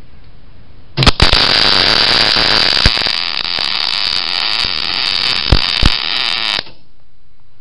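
Wire-feed (MIG) welder arc crackling steadily as it welds a BMW trunk hinge, starting about a second in, with a few sharp pops near the start and near the end, then cutting off suddenly when the trigger is released.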